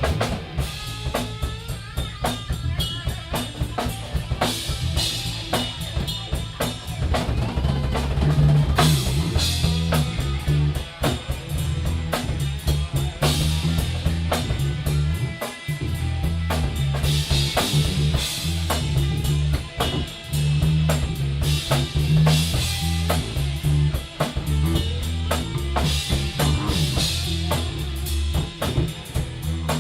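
Live band playing an instrumental passage with no vocals: a drum kit driving it with kick, snare and cymbals over a bass guitar line. The low end drops out briefly about halfway through.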